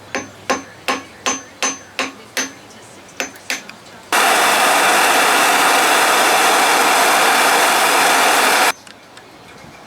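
Hammer tapping a sharpened screwdriver into a broken head-cover bolt on an Evinrude outboard: about ten sharp, ringing metal-on-metal taps, two to three a second, as the tip is driven in to cut a groove for tapping the bolt out. Then a loud, steady hiss for about four and a half seconds that starts and cuts off suddenly.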